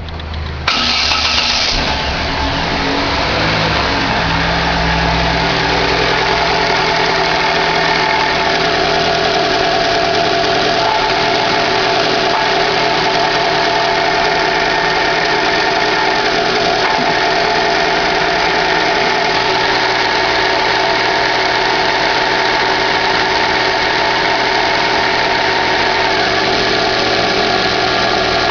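2011 Chevrolet Classic's four-cylinder engine starting about a second in, then idling steadily. The owner says it makes a bearing-like noise whenever the clutch pedal is released, and that the noise has persisted despite a new release bearing and clutch.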